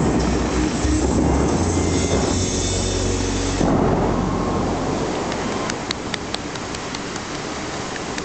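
Bellagio fountain's water jets firing in a heavy rushing surge, with a second, bigger surge about three and a half seconds in. The falling spray then settles into a quieter, rain-like hiss toward the end.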